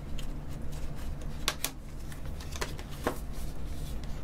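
Cardboard memory-kit box being peeled open and its inner packaging slid out by hand: light rustling broken by a few sharp clicks and snaps.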